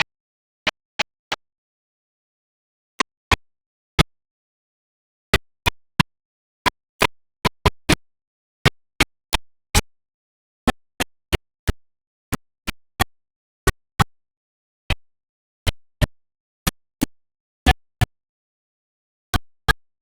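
A series of sharp, very short clicks or bangs at irregular intervals, a few dozen in all, sometimes two or three in quick succession, with dead silence between them.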